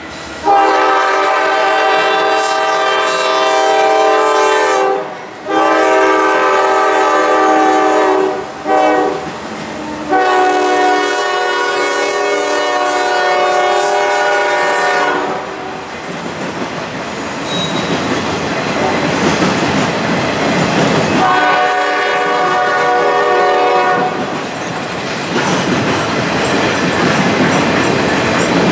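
Norfolk Southern locomotive's air horn sounding the grade-crossing signal: two long blasts, a short one and a long one, then another blast about 21 seconds in. Between and after the blasts come the rumble and clickety-clack of the rail train's flatcars rolling past.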